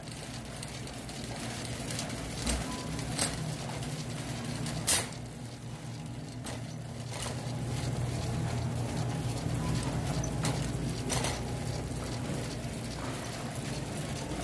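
Wire shopping cart rolling over a concrete store floor, rattling with a few sharp clacks, over a steady low hum.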